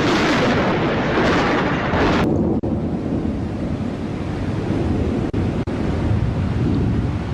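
Strong storm wind rushing and buffeting the microphone. About two seconds in, the sound cuts to a duller, deeper rumble, with two brief dropouts later on.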